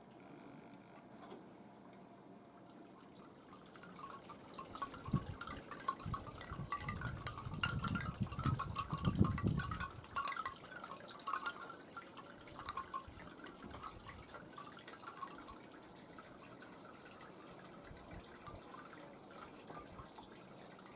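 Water dripping in quick, irregular drops, as from rain, busiest in the middle stretch, with gusts of wind buffeting the microphone about halfway through.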